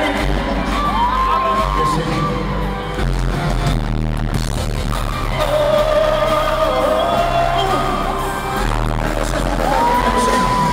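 Live pop concert sound, heard from within the audience: an amplified band with heavy bass and drums under a singer holding long notes.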